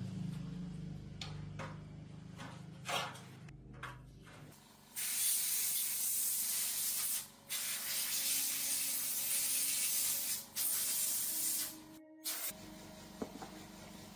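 Spray hissing in three long bursts of a few seconds each, with short breaks between them, after a low steady hum in the first few seconds.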